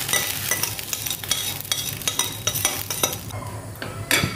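Egg batter sizzling in hot margarine in a frying pan just after it is poured in, crackling thickly for about three seconds, then settling to a quieter sizzle. A short louder noise comes near the end.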